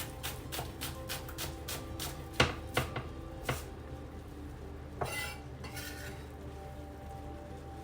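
Knife chopping spring onion on a cutting board in quick, even strokes, about four a second, then a few louder knocks and a scrape of the chopped onion being gathered up.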